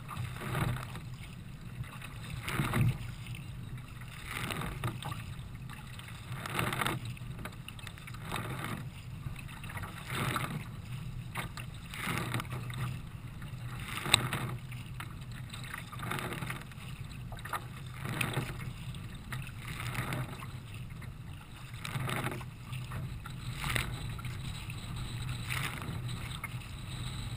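Choppy water splashing and slapping against the bow of a Nelo racing kayak as it is paddled, surging about every two seconds over a steady low rumble. One sharp tick about halfway through.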